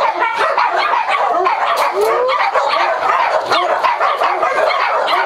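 Many kennelled shelter dogs barking and yipping at once, a dense, unbroken chorus of overlapping calls.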